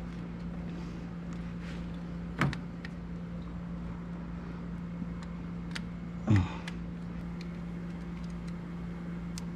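Two short clunks of the thermostat and its spring clip being pushed down and twisted into the housing, about four seconds apart, the second the louder, over a steady low hum.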